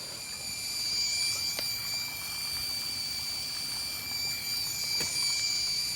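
Garden hose spray nozzle spraying a steady stream of water against a wall crack: a continuous hiss with a high, steady whine over it, and a couple of faint knocks.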